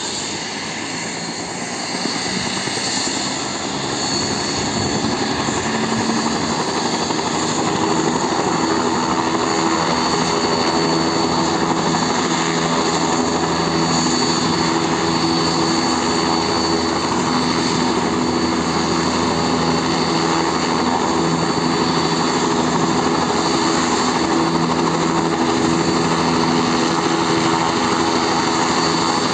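Helicopter running on the ground with its main rotor turning, the engine and rotor noise building over the first several seconds as it spools up, then holding steady with a constant high whine over the rotor's drone.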